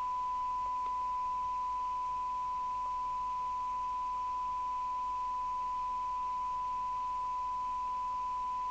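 A steady, unbroken test tone from the CB radio's loudspeaker: the signal generator's test modulation demodulated by the receiver, as used for SINAD sensitivity checks.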